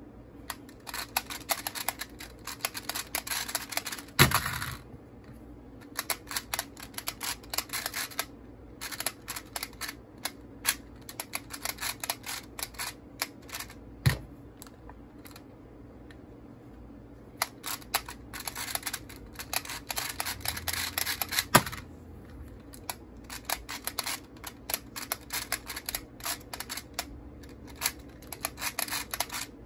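Rubik's Clock puzzle being turned at speed: rapid clicking of its pins and dials in dense runs of several seconds. A sharp slap ends a run about four seconds in and another near the three-quarter mark, the hands hitting the speedcubing timer to stop a solve, with a single knock in between.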